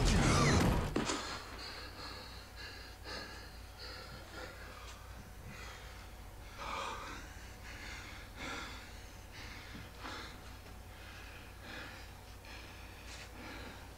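Horror-film soundtrack: a loud thump in the first second, then a man's heavy, gasping breathing with short low utterances in a tense, quiet scene.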